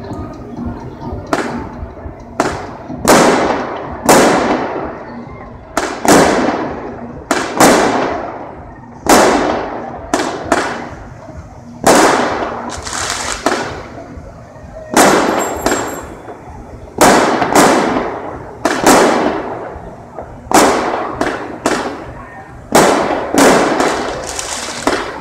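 A rapid series of loud explosive bangs, one every second or two, each ringing on with a long echo that dies away over about a second.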